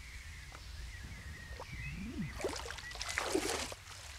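Insects droning steadily in the background, with a short noisy rush of sound about two and a half to three and a half seconds in.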